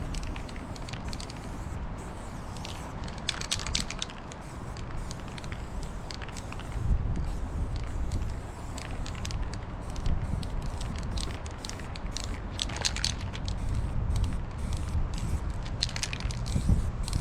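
Aerosol spray-paint can hissing in short, irregular bursts as a rusty wheel rim is painted, over a low rumbling background.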